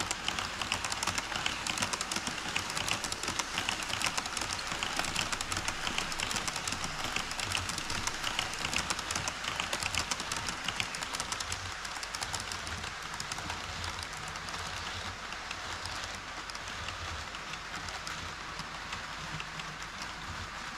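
HO-scale model train running on KATO Unitrack, its wheels clicking rapidly over the rail joints. It is louder for the first half and then grows quieter as it moves away.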